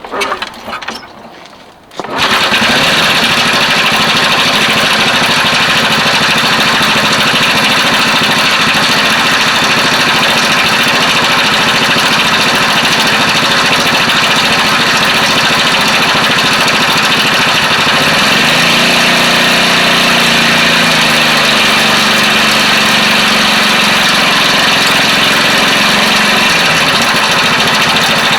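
Honda Super Cub four-stroke single-cylinder engine starting about two seconds in, then running steadily with the abnormal noise of a faulty cam chain. About two thirds of the way through, the engine speed rises, holds for several seconds and drops back.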